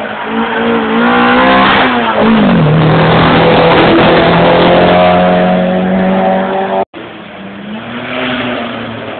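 Hill-climb race car engine running hard. Its pitch drops at a gear change about two seconds in, then climbs steadily as it pulls. The sound cuts out for an instant near seven seconds and comes back quieter.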